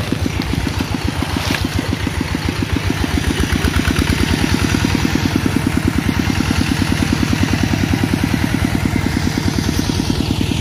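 A small engine running steadily with a rapid, even putter, a little louder from about three seconds in.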